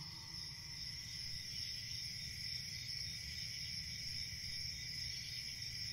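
Crickets chirping steadily and faintly, with a low even rumble beneath.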